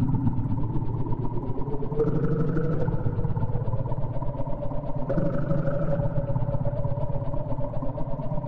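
Electronic music made of a gritty, fast-pulsing buzzing drone with held tones that shift to new pitches about every three seconds.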